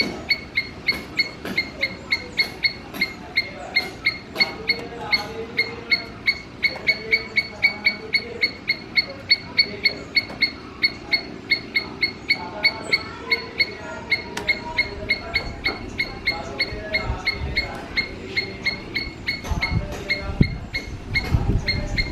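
Squirrel calling, short high chirps repeated steadily about three or four times a second, as in a squirrel's alarm call. A low rumble comes in near the end.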